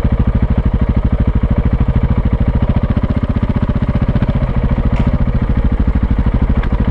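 Off-road motorcycle engine running at low revs as the bike is ridden slowly, a steady fast pulse of about a dozen beats a second.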